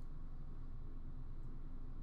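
Quiet room tone: a steady low hum with no distinct sounds.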